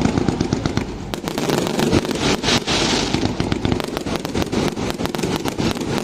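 Firecrackers and fireworks going off in a dense, continuous run of rapid bangs and crackles.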